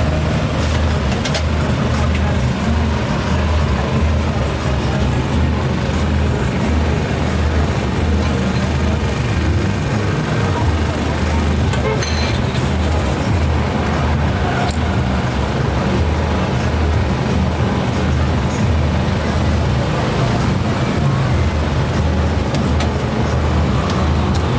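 Steady low engine hum of road traffic, unchanging throughout, with a few faint clicks and background voices.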